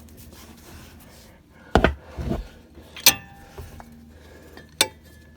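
Socket wrench being fitted onto and worked against the lower front shock bolt: a couple of dull knocks, then two sharp metal clicks.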